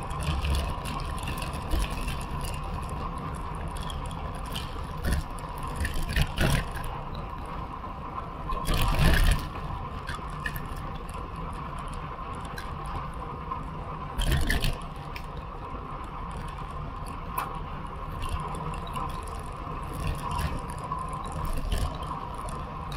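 Bicycle riding along an asphalt road: steady wind and tyre noise with light rattles and knocks from the bike, and two short louder whooshes about nine and fourteen seconds in.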